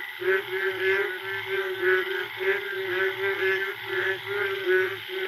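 Chorus of many frogs calling at once, a breeding chorus after the first rain. A steady droning note breaks off now and then, over rapid higher calls repeated several times a second. The calls are sharp and echo.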